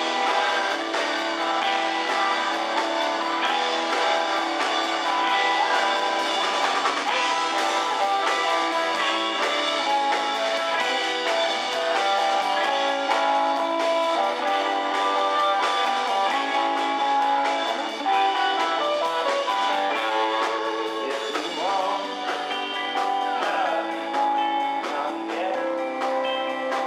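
Live rock-and-roll band playing electric guitars and bass guitar. The recording sounds thin, with almost no deep bass.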